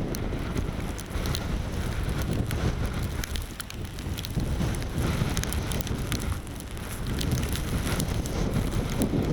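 Strong snowstorm wind buffeting the camera microphone: a deep, uneven rumble that swells and eases in gusts, with many small sharp ticks scattered through it.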